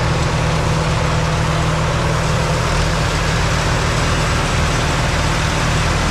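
Diesel tractor engine running steadily at an even speed. The deepest part of the rumble grows stronger a little before halfway through.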